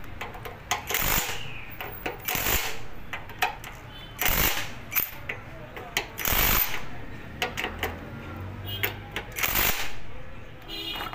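Cordless power driver with a socket run in several short bursts on the crankcase side-cover bolts of a 9 hp single-cylinder engine, with small metallic clicks of the tool and bolts between bursts.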